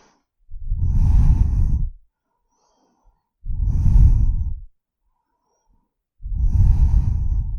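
A person breathing deeply and audibly, three long breaths each lasting over a second, with the breath pushing heavily on the microphone.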